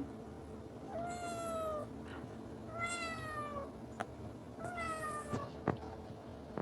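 A cat meowing three times, long meows about two seconds apart, each falling slightly in pitch.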